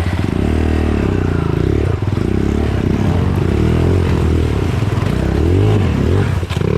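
Dirt bike engine revving up and down repeatedly, its pitch rising and falling every second or so, with some clattering.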